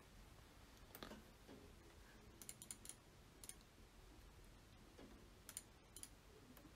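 Faint, scattered clicks of a computer mouse over near-silent room tone, with a quick run of several about two and a half seconds in.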